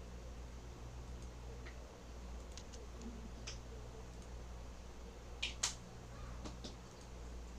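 Faint computer mouse clicks, a few scattered single clicks with a slightly louder pair more than halfway through, over a low steady hum.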